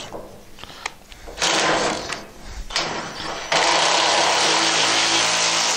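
Ryobi mini cordless impact driver hammering as it drives bolts into the grill cabinet's sheet-metal panels, in three bursts, the last the loudest and longest.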